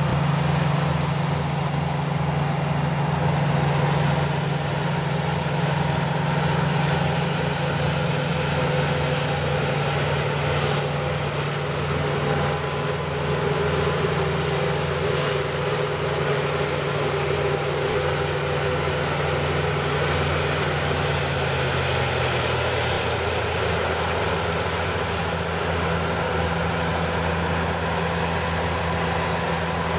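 Palesse GS12 combine harvesters running while harvesting: a steady machine drone with a low hum that drops a little in pitch about twenty seconds in. Crickets chirp steadily behind it.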